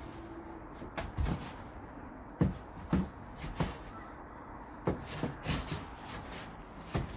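A series of irregular dull thumps and knocks, about nine in all, over a low steady background.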